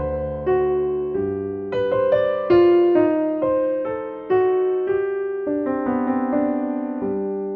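Slow piano music: single notes and chords struck one after another and left to ring out, with a last low chord about seven seconds in.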